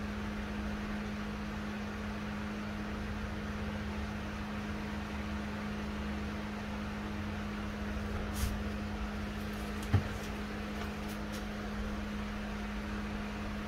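A steady hum with a constant low tone, with a few light knocks and clicks of plastic between about eight and eleven seconds in as a measuring funnel is handled and fitted onto the transmission fill point.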